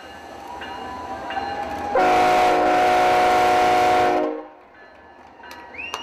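BNSF diesel locomotive's air horn: a fainter tone builds, then about two seconds in a loud, steady blast sounds for about two seconds and cuts off sharply.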